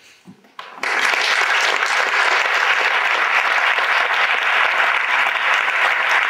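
Audience applauding, breaking out suddenly just under a second in and continuing steadily.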